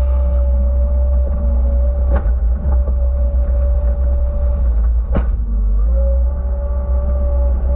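Skid steer engine running steadily while grading with a land planer, with a steady whine over the low rumble and two sharp knocks, about two seconds in and again about five seconds in.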